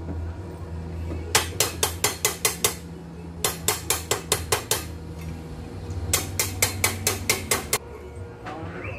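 Three quick runs of sharp hammer taps on steel, about six taps a second, each run lasting a second or so. A low steady hum sits underneath and drops away near the end.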